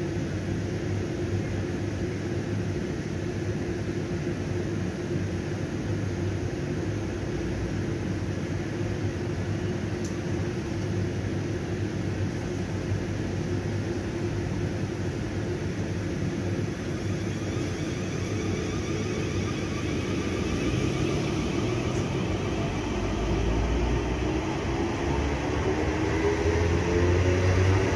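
A train at a station: a steady hum, then from about two-thirds through a whine that rises in pitch and grows louder as the train gets moving.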